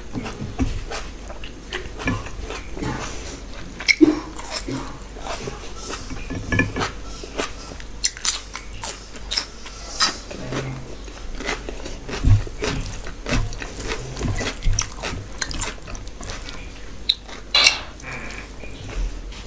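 Close-miked eating sounds: a person chewing and biting mouthfuls of mutton curry and rice eaten by hand, with many short, irregular wet mouth clicks and smacks.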